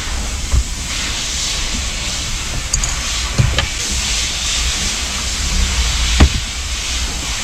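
A steady hiss that switches on and off abruptly, with a few sharp knocks and clicks, over a low rumble.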